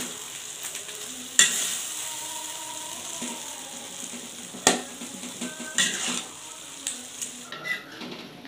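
Green beans and tofu sizzling in a hot wok while a metal spatula stirs them, scraping and knocking against the wok now and then, sharpest about a second and a half in and near five seconds. The sizzle dies down near the end.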